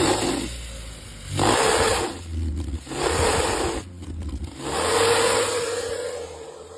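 Small car's engine revved in four short blips, its exhaust fitted with a strip of motorcycle inner-tube rubber that flaps in the gas flow and gives each rev a rough, raspy buzz. The engine settles back to idle between revs.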